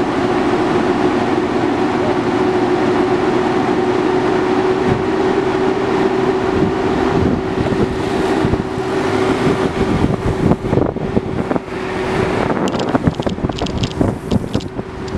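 Longboard wheels rolling on asphalt: a steady rumble with a constant hum. In the last few seconds it turns choppy as wind buffets the microphone at downhill speed.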